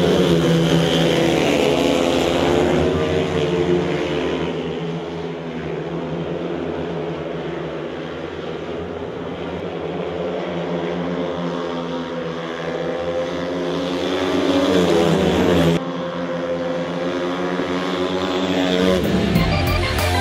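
A pack of four speedway motorcycles, single-cylinder methanol-burning racing engines, revving up at the start and running flat out around the track. Their pitch rises and falls as they pass through the turns and straights, and the engines drop away near the end as the riders slow.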